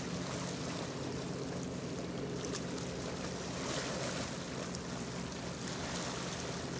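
Legend-class Coast Guard cutter passing under way, its engines giving a steady low hum under a continuous wash of wind and water noise.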